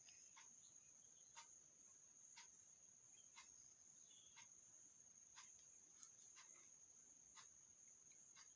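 Near silence: faint room tone with a steady high-pitched whine and soft ticks about once a second.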